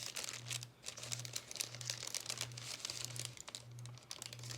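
Paper wrapper of a sterile glove pack crinkling as it is handled, a dense run of fine crackles.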